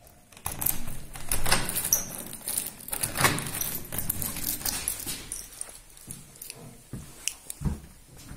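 A bunch of metal keys jangling and clicking as a key is worked in a front-door lock, busiest in the first few seconds, then a few dull knocks as the door is pushed open near the end.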